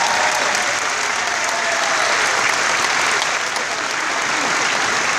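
Theatre audience applauding steadily after the music ends.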